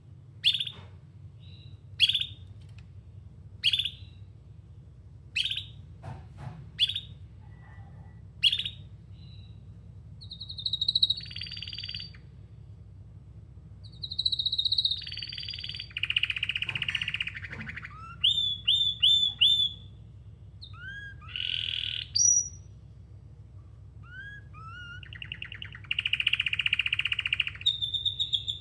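Domestic canary singing: a string of sharp single chirps about every second and a half, then longer rolling trills and runs of quick repeated notes.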